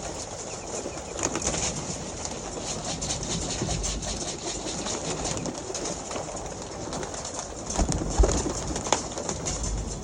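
Racing pigeons cooing around the loft as they are trapped in, over a steady high hiss, with scattered small knocks and a louder thump about eight seconds in.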